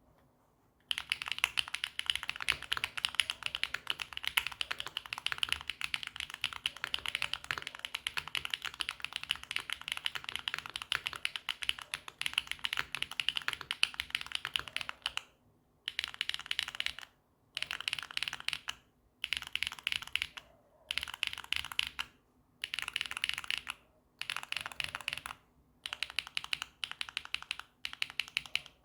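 Typing on a Neo80 mechanical keyboard with HMX Snowfall tactile switches (long-pole POM stems) mounted on a polycarbonate plate with full foam, under Swagkeys Classic keycaps, giving a clacky keystroke sound. The first fourteen seconds are a fast, unbroken run of keystrokes, followed by short bursts of typing separated by brief pauses.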